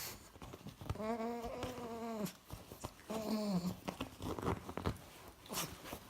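A pug snoring: two drawn-out, pitched snoring breaths, the first over a second long and the second shorter, with a few sharp clicks between and near the end.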